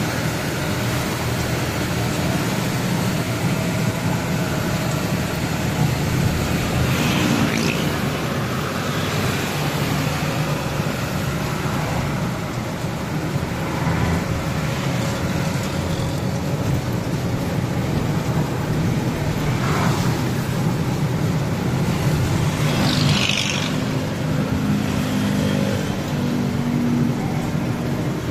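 Truck engine running and road noise heard from inside the cab while driving, a steady low hum with a few brief rushing swells.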